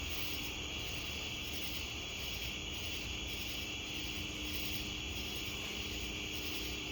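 Insect chorus, such as crickets or katydids: a steady high-pitched buzzing, with a higher insect call pulsing about twice a second, over a faint steady low rumble.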